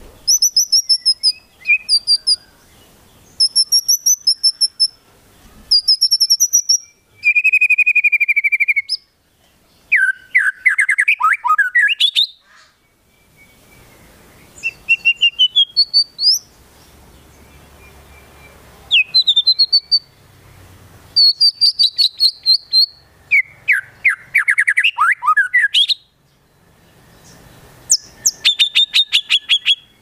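White-rumped shama singing in full voice: a run of separate phrases of clear whistled notes, buzzy trills and fast falling and rising chattering sweeps, with short pauses between. The song is full of imitated calls of other birds.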